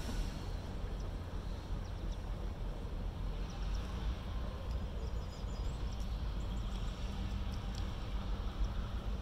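Canadian National diesel freight locomotive approaching from a distance, heard as a steady low rumble mixed with wind on the microphone.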